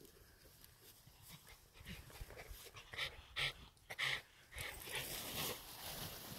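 Japanese Spitz dogs making short, breathy, noisy sounds. The three loudest come close together about three to four seconds in.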